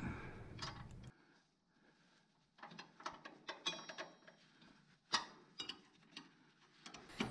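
Socket ratchet and steel bolt hardware on a garden tractor's loader mounting bracket: a run of irregular metallic clicks and light clinks starting about two and a half seconds in, one of them ringing briefly.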